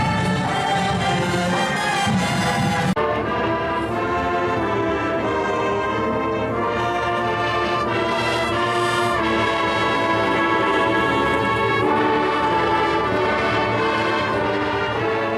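Brass-led orchestral-sounding music playing steadily, with an abrupt switch to a different passage about three seconds in.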